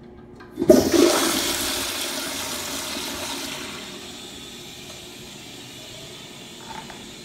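Kohler Wellworth Pressure Lite pressure-assist toilet flushing: a sudden loud whoosh of water a little under a second in, fading over a few seconds into a quieter steady hiss.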